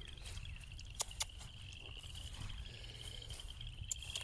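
Steady high-pitched trill of an insect chorus, with a low rumble and a few soft clicks.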